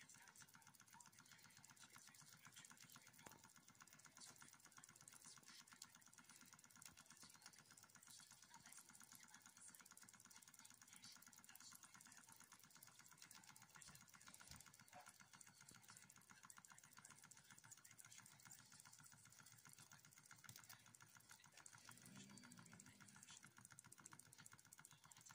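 Wilesco D2 miniature steam engine running: its single oscillating cylinder and brass flywheel make a fast, faint, even ticking.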